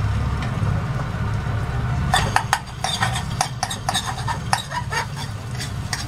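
Quick clicks and scraping taps of a utensil working olive oil around an aluminium saucepan, starting about two seconds in, over a steady low hum.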